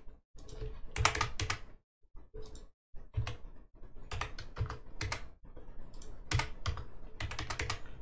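Typing on a computer keyboard: irregular clusters of key clicks, pausing for about a second roughly two seconds in.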